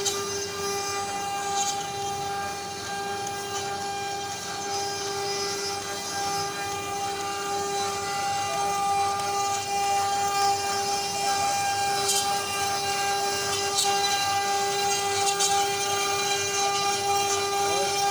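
Multi-spindle CNC router carving a relief pattern into a wooden panel: a steady high whine from the spindles over the hiss of cutting, with a few faint ticks near the end.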